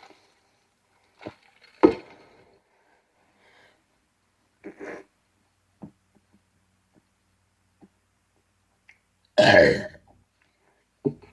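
A man burping: a few brief throat sounds early on, then one loud burp lasting about half a second near the end.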